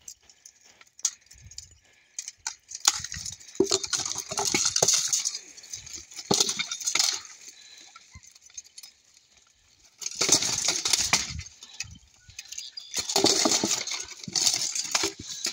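Steel plate armour clanking and weapons striking armour and shield as two armoured fighters spar, in bursts of rapid metallic clinks and clatter with a lull a little past the middle.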